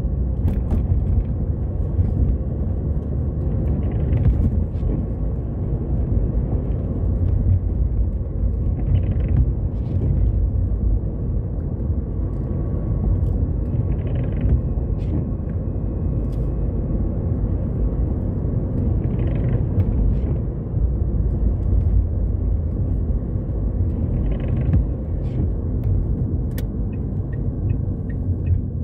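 Steady low rumble of a car's engine and tyres heard from inside the cabin while driving, with the windscreen wipers swishing across the glass about once every five seconds.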